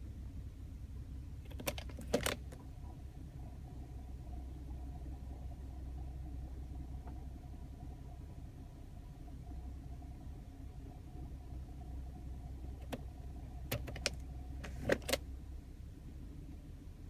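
Volkswagen Passat CC 3.6 VR6 engine idling cold in park or neutral, a steady low hum with a faint rattle. Two short clusters of sharp clicking rattles come about two seconds in and again near the end. The owner blames the rattle on a DSG gearbox oil change and hears it only with the engine cold.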